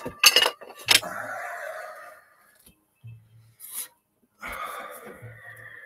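Two sharp clicks, then two stretches of rasping, rubbing noise, each about a second long, close to the microphone: handling noise as someone works at the recording device.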